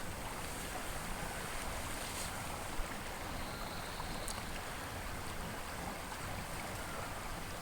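Steady rushing of river water flowing, with a faint click about three seconds in.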